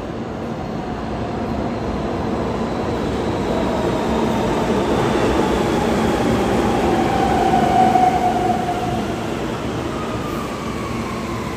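Subway train on the rails: a steady rumble that grows louder to a peak about eight seconds in, then eases, with a thin whine sliding slowly down in pitch.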